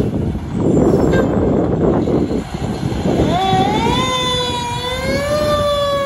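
The fire truck's heavy engine rumbles as it pulls out. About three seconds in, a Federal Q2B mechanical siren starts winding up, its wail rising and then holding high.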